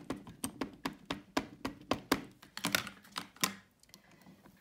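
Irregular light clicks and taps, several a second, from handling a Stamparatus stamp-positioning tool and the paper on it during stamping; they thin out for the last second.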